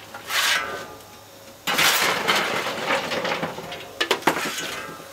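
Steel coal shovel scraping and clinking as coal is scooped off the cab floor plate and thrown into a steam locomotive's firebox: a short scrape, then a longer rough scraping starting just under two seconds in, and a few sharp metallic clinks near the end.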